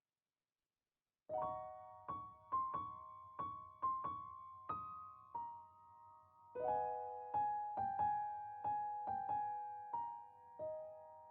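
Background piano music: a gentle melody of single struck notes, each ringing and fading, with fuller chords partway through. It starts after a second or so of silence.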